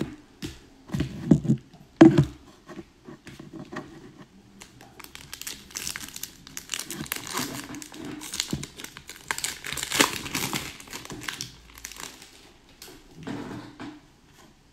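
Foil wrapper of an Upper Deck hockey card pack being torn open and crinkled by hand, rustling for several seconds in the middle. A couple of knocks in the first two seconds.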